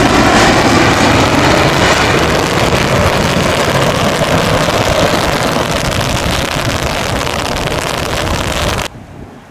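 Jet engines of a Citilink Airbus A320 running loud on a wet runway, a steady rushing noise that slowly fades as the aircraft moves away, then cuts off abruptly near the end to a faint wind-like hiss.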